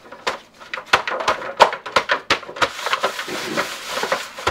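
Disposable aluminium foil pan crinkling and crackling as it is gripped and handled while a seasoned beef chuck roast is turned over and set down in it: a rapid, irregular run of sharp crackles.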